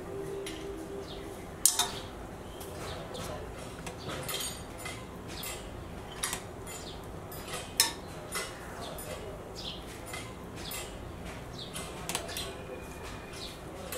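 A kitchen utensil clinking and knocking against a large metal pot as chicken pieces are laid onto the rice. There are scattered light clicks, with two sharper knocks about two seconds in and about eight seconds in.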